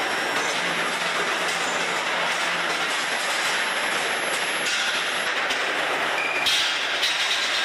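Steady clattering, rumbling machine noise of a hot-rolling line as a red-hot steel bar runs through grooved guide rollers into the mill. The noise turns brighter and slightly louder about six and a half seconds in.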